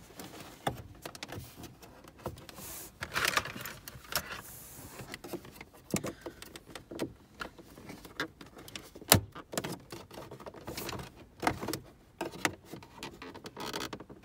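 Plastic dash trim cover being pried up with a plastic trim tool, its clips letting go: scattered clicks, scrapes and creaks of plastic, with one sharp loud snap about nine seconds in.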